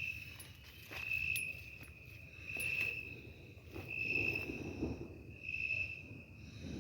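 An insect calling in regular pulses: a high, steady buzzing note about half a second long, repeated roughly every one and a half seconds. Some faint rustling sounds about four seconds in.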